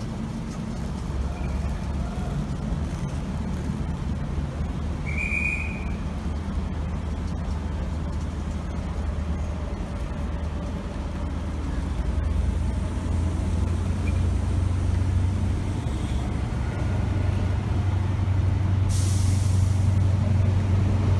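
High Speed Train's diesel power car engine running with a steady low hum that grows louder in the second half. A short high-pitched tone sounds about five seconds in, and a sharp hiss of released air lasting about a second comes near the end.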